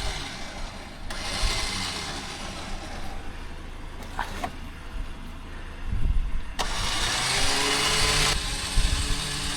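Tank 500 SUV's engine running at a low idle, with a few sharp clicks; about two-thirds in a louder rushing noise with faint steady whines sets in over the rumble.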